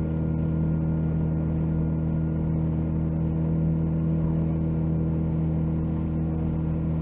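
Small boat's motor running at a steady speed while the boat travels, an even hum with no change in pitch.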